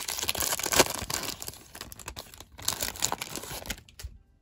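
A trading-card pack wrapper crinkling and tearing as it is opened: dense, irregular crackling that dies away about four seconds in.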